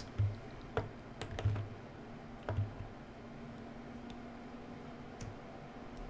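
A few light plastic clicks and soft thumps from a thumb-joystick module being worked by hand, bunched in the first three seconds, with one more faint click about five seconds in, over a faint steady hum.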